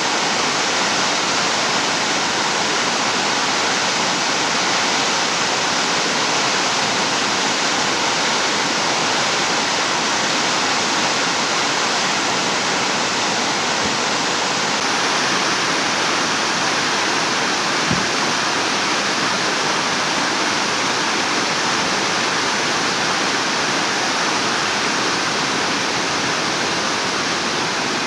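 Floodwater pouring down a rain-swollen ravine waterfall: a loud, steady, unbroken rush of water. There is one brief low thump about eighteen seconds in.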